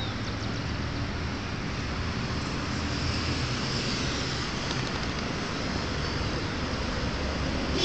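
A dog digging in loose soil with its front paws, scraping and scattering dirt, over a steady low rumble of background noise.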